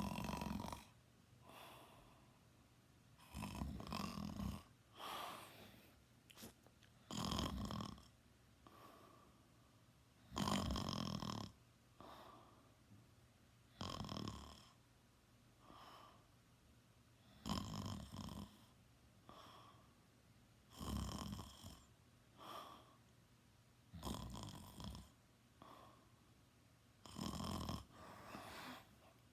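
A sleeping teenager snoring loud, with about nine snores, one every three to four seconds, each followed by a softer breath.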